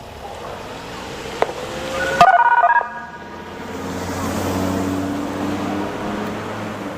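A quick string of radio signalling tones, like touch-tone dialling, over a scanner about two seconds in, just after a click. Then a vehicle passes, its engine hum swelling and fading.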